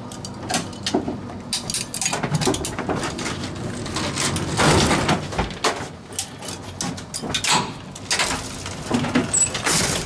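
Door hardware of an old manual Otis elevator being worked: the chain latch on the hoistway door rattles and clanks as it is unhooked, and the metal scissor gate is handled. Repeated sharp metal clicks and knocks, with a longer, louder scraping run about halfway through.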